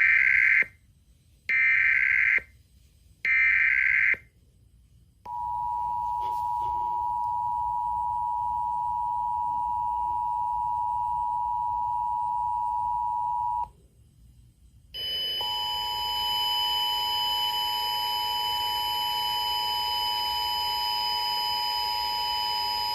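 Emergency Alert System test tones: three short bursts of the screeching digital header data, then the two-tone attention signal held steady for about eight seconds. After a brief gap the two tones sound again over a steady hiss and a higher whine. These tones open an EAS required monthly test.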